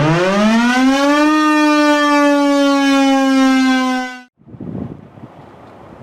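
Federal Signal 2001-130 electromechanical outdoor warning siren winding up to a steady single-tone wail. The tone cuts off suddenly about four seconds in, leaving wind noise.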